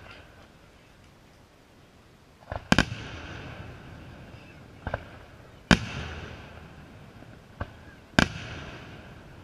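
Aerial firework shells bursting: three loud booms roughly three seconds apart, each with a fainter thump just before it and a rolling echo trailing after.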